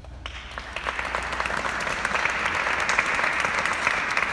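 Small audience clapping hands, the applause starting about a third of a second in, building over the first second and then going on steadily.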